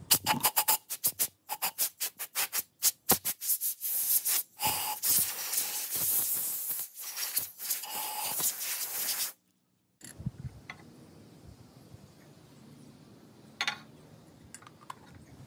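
Compressed-air blow gun blowing dust off a lathe-turned wooden vase, first in rapid short bursts, a few per second, then in longer continuous blasts. The air cuts off suddenly about nine seconds in, leaving faint background with a couple of light clicks.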